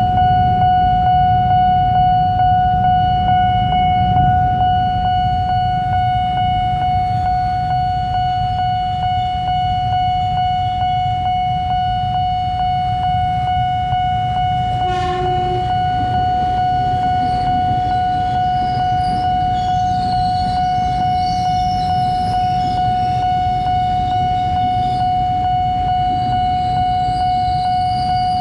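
Train running through a railway level crossing with a steady low rumble. Over it the crossing's warning signal holds one unbroken high tone. From about twenty seconds in, a high metallic wheel squeal joins, and there is a single knock near the middle.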